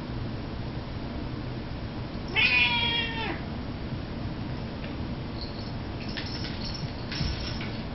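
A Siamese cat meows once, a single call of about a second that drops in pitch at the end.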